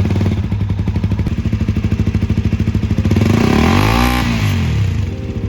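Husqvarna Svartpilen 200's single-cylinder engine idling through an aftermarket-fitted Svartpilen 401 canister muffler, with one throttle blip about three seconds in that revs up and drops back to idle. The exhaust note is louder and bassier than the stock underbelly muffler's.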